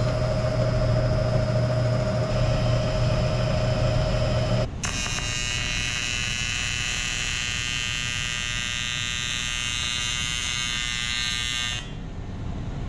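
A vertical milling machine runs with a steady hum for the first few seconds. Then an electric welding arc buzzes steadily for about seven seconds and stops near the end.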